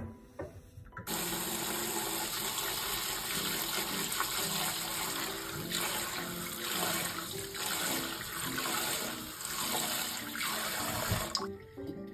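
Tap water running into a stainless steel colander of rice in a sink, with gloved hands swishing and rubbing the rice to wash it. The water starts about a second in and stops near the end.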